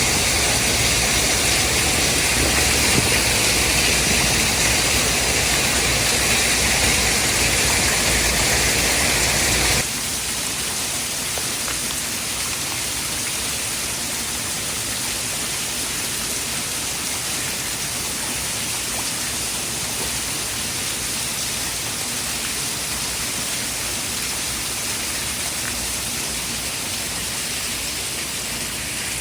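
Steady rushing water-like white noise with a deep low rumble. About ten seconds in it switches abruptly to a quieter, thinner, even hiss like steady rain.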